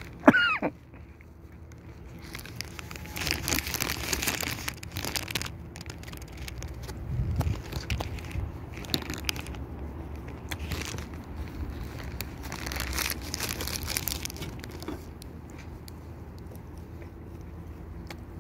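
Crinkling of a paper pastry wrapper and bites into a croissant, coming in several bouts over a low steady background. A brief falling squeal sounds at the very start.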